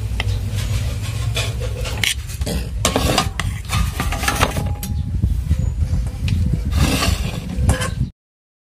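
Steel fork clinking and scraping against a plate as it turns and lifts fusilli pasta, in many short sharp clicks over a steady low rumble. The sound cuts off abruptly near the end.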